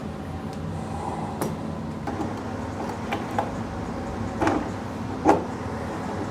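Clicks and light knocks of metal door-lever hardware being handled and fitted together on the door, with a louder clack about five seconds in, over a low steady hum.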